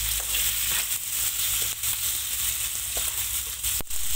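Beef skin stir-frying in a wok, sizzling steadily while a wooden spatula stirs it with light scraping ticks. A brief drop and click comes just before the end.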